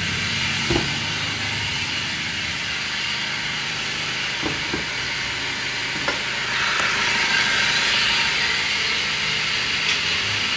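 Maruti Vitara Brezza engine running with a steady hissing whir, louder from about six and a half seconds in, with a few light clicks. The owner puts the abnormal noise down to the fan belt.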